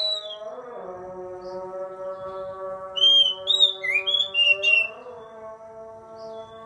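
Oriental magpie-robin singing: quick, varied whistled phrases that slide up and down, one brief phrase at the start and a longer burst of song from about three to five seconds in. Underneath runs a steady droning tone that shifts pitch about half a second in and again near five seconds.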